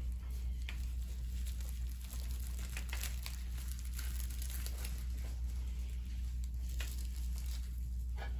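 Crinkling and rustling of plastic wrap and elastic plaster bandage as gloved hands wrap and smooth a plaster cast around a transhumeral residual limb. The rustles come in short irregular strokes over a steady low hum.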